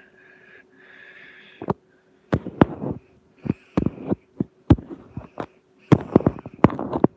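A run of irregular sharp clicks and knocks, some in quick clusters, with a faint breathy hiss between them.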